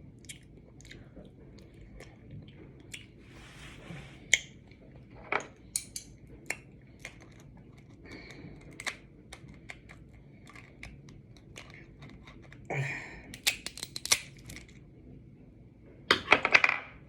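Close-up eating of crab legs: scattered clicks and cracks of shell being bitten and pulled apart, with chewing, and a dense run of cracking near the end.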